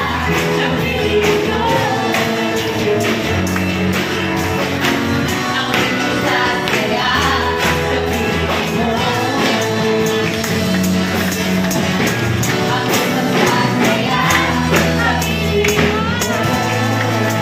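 Live church praise band of drum kit, acoustic guitar, electric bass and keyboard playing a worship song with a steady beat, with voices singing along.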